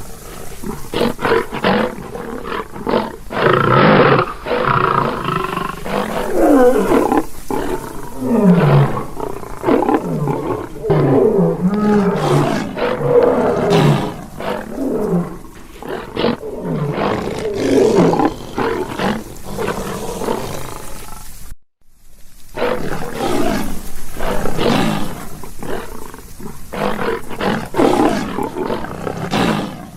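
Lion roaring, call after call, with falling pitch glides. There is a brief sudden break to silence about two-thirds of the way through.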